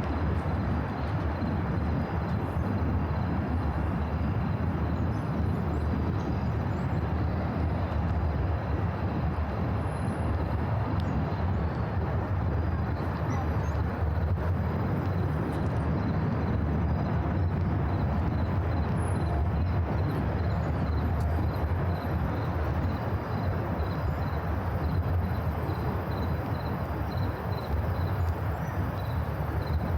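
Steady low rumble of city traffic, with a faint high chirping, typical of insects, pulsing evenly near the end.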